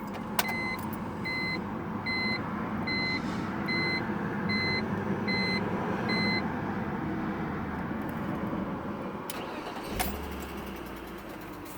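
BMW 330ci's 3.0-litre inline-six engine idling, with an intermittent tick that the owner cannot trace even after new spark plugs and an ignition coil. A run of about eight even electronic beeps sounds over the first six seconds, and a low thump with a click comes about ten seconds in.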